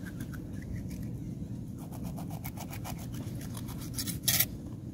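Kitchen knife slicing a skin-on raw fish fillet on a flat stone: a quick run of short scraping strokes starting about two seconds in, with one sharper scrape near the end.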